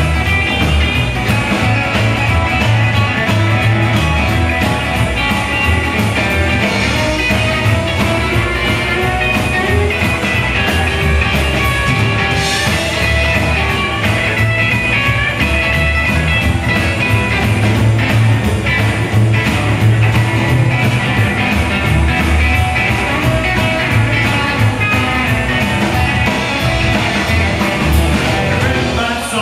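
Live rock and roll band playing loudly: acoustic guitar, upright double bass and drum kit, over a steady fast beat.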